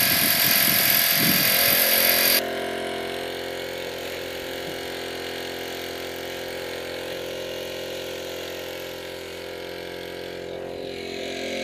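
A loud steady hiss for the first couple of seconds, then abruptly a small engine on a firefighting quad running steadily, with the hiss of its hose nozzle spraying a water mist.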